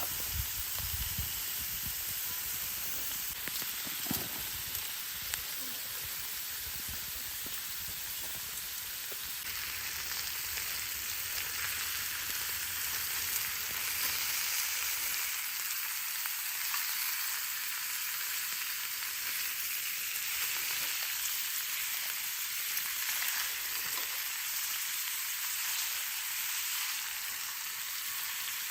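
Food frying in a skillet over a campfire, a steady sizzle that grows louder about ten seconds in.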